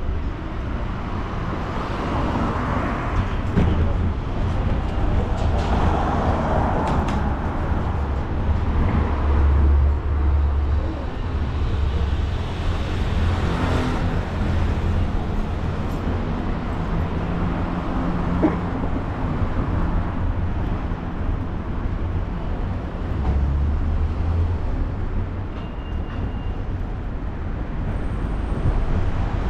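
Ride-along sound from a GoPro on a moving bicycle: wind rumbling on the microphone in gusts over steady rolling noise, with urban traffic passing now and then.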